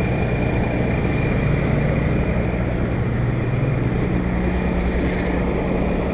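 2016 Rheem 3.5-ton central air conditioner condensing unit running: a steady rush from the condenser fan over a low, even compressor hum.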